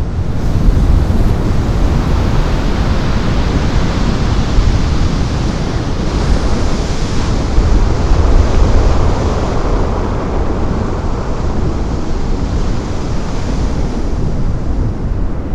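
Heavy ocean surf breaking, with strong wind buffeting the microphone. Loud and steady throughout.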